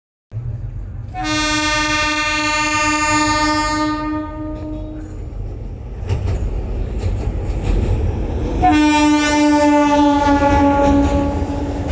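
A train rumbling past with wheels clattering, while the locomotive's horn sounds two long steady blasts. The first starts about a second in, and the second follows about three and a half seconds after the first ends.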